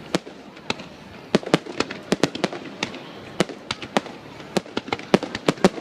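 Fireworks display: an irregular string of sharp bangs and cracks, about three or four a second.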